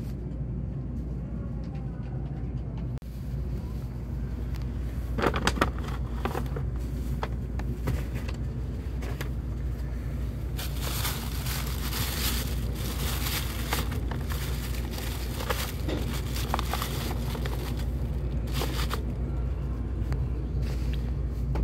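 Steady low hum inside a Shinkansen carriage, with a plastic carrier bag rustling and being handled: a brief burst about five seconds in, then a longer stretch of crinkling from about ten seconds in as a boxed bento is taken out of the bag.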